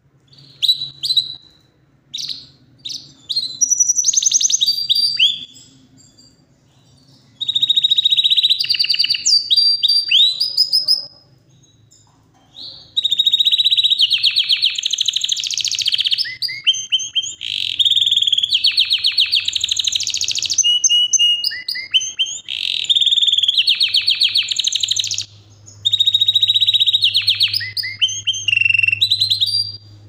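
Yorkshire canary singing loudly in long phrases of rapid trills and rolls with short pauses between them. Past the middle, the song runs almost without a break.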